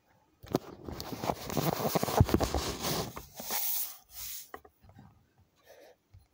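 Rubbing and scraping handling noise right at the phone's microphone, with many small clicks, dense for the first few seconds and then thinning to a few scattered knocks and rubs.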